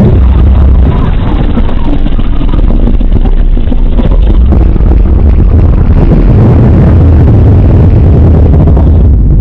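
A made-up blue-dragon sound effect: a loud, steady, low rumble that runs without a break.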